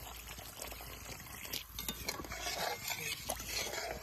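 Pork curry being stirred in a cooking pot: liquid sloshing with scattered scrapes and clicks, busier in the second half.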